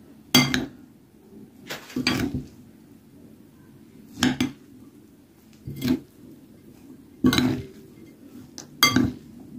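Metal spoon scraping and clinking against a glass bowl as chopped salad is stirred, in six separate strokes about a second and a half apart.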